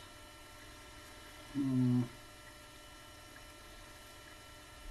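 A man's short hummed 'hmm' about a second and a half in, one steady pitch, over a faint, steady electrical hum.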